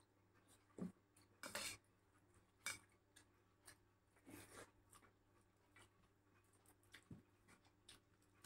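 Faint eating sounds: soft chewing and a few scattered clicks and scrapes of fingers working rice on a steel plate.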